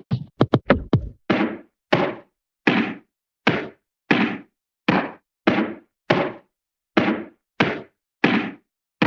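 Hanna-Barbera cartoon hit sound effects, whacks and thwacks on bodies and wood, played one after another. A quick run of short sharp cracks in the first second is followed by single hits about every two-thirds of a second, each separated by silence.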